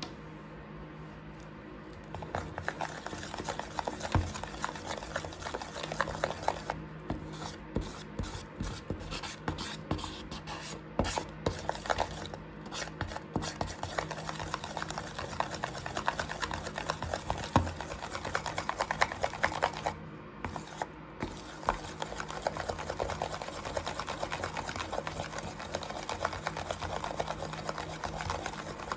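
Homemade slime of shampoo and baking soda being stirred and folded with a silicone spatula in a plastic tub: continuous wet squishing and crackling, with occasional knocks of the spatula against the tub, starting about two seconds in.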